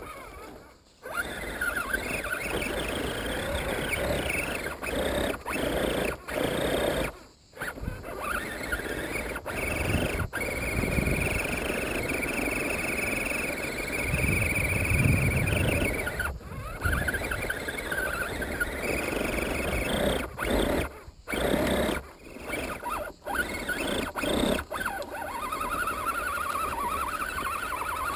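Axial SCX10 1/10-scale RC crawler's electric motor and geared drivetrain whining as it crawls over rough ground, heard close up from a camera mounted on the truck. The whine rises and falls in pitch with the throttle and cuts out abruptly several times for a moment before picking up again.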